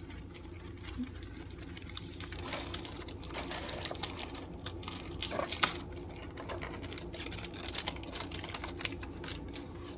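Packaging being handled and unwrapped by hand: a dense run of small crinkles and crackles, with one sharper crackle just past the middle.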